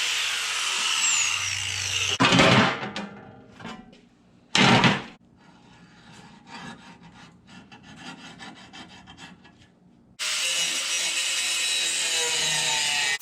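A power tool cutting or grinding steel, in separate runs: a loud stretch at the start, two short loud bursts, a quieter spell with faint ticks, then another steady run that starts abruptly about ten seconds in.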